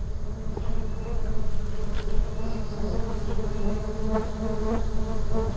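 Many bees buzzing steadily, a colony stirred up while its nest is broken open. A small click sounds about two seconds in.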